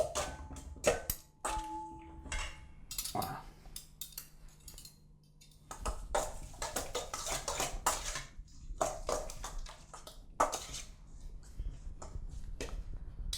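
A utensil stirring chicken pieces through a thick mayonnaise, lemon and olive-oil marinade in a bowl, clinking and scraping against the bowl in irregular strokes. One clink rings briefly about a second and a half in.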